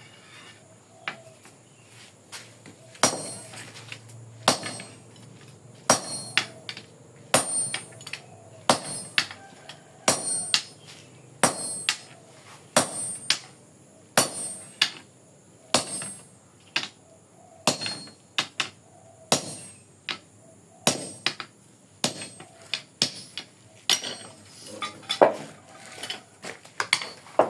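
Hand hammer striking steel to cut it, probably driving a cutting chisel into the stock. A heavy blow lands about every one and a half seconds, with lighter taps in between, and each strike rings metallically.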